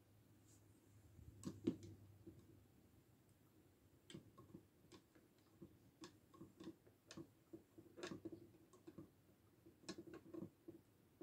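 Light plastic clicks and taps as a small toy ladder is handled and hooked onto a plastic toy bunk bed. A cluster of louder clicks comes about one and a half seconds in, then scattered light ticks.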